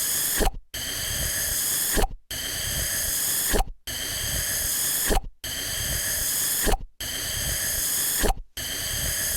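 Suction cup sound effect looped about every one and a half seconds: a steady hissing suck ending in a sharp pop, then a brief silence, six times over.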